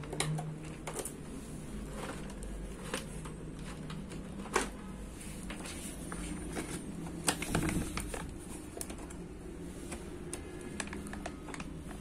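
Irregular clicks and light knocks of hands handling plugs and cables, with a few louder knocks about four and a half and seven and a half seconds in, over a low steady hum.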